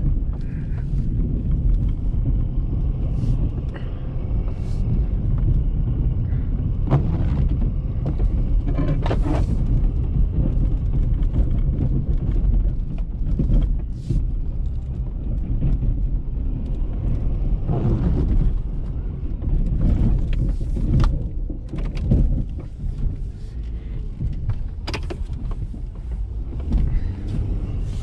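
2019 Ford F-350's 6.7-litre Power Stroke V8 turbodiesel running steadily while the truck pushes a snow plow on a pass, with occasional knocks and thumps.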